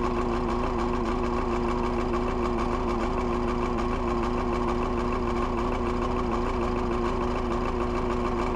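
Perkins 4.236 four-cylinder diesel in a JCB 1400B backhoe idling steadily after a cold start in freezing weather.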